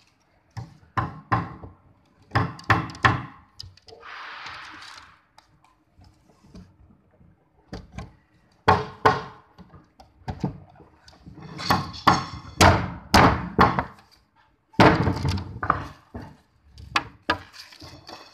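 Hard clear plastic chair parts knocking and clacking together as legs and rails are handled and fitted during assembly, in irregular clusters of sharp knocks, some with a bright ringing edge. A brief rustle about four seconds in.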